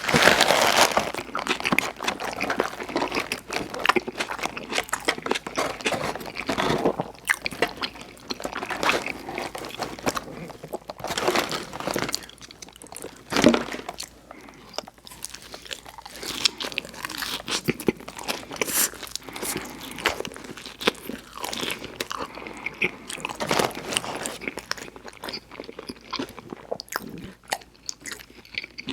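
Close-miked chewing of In-N-Out burger and fries: irregular crisp crunches and mouth sounds, with a loud crunch right at the start and another about halfway through.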